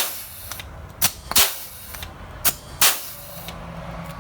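Pneumatic pop rivet gun firing to set a pop rivet through the end link of a nunchaku chain. It gives about five sharp snaps, mostly in pairs a third of a second apart, and the later snaps trail a brief hiss of air.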